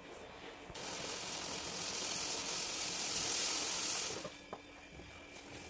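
Milky chai boiling up in a steel saucepan on a gas stove: a steady hiss that starts suddenly about a second in and cuts off about four seconds in, leaving a fainter hiss.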